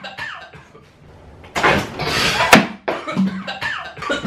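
Pressurised plastic bottle bursting off its bicycle-style pump: a sharp pop inside a rush of air and flour spraying out, about two seconds in, followed by a short vocal sound.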